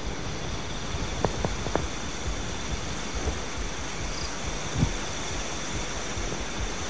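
Night ambience of crickets chirring over a steady hiss, with a few soft knocks about a second in and a low thump near five seconds.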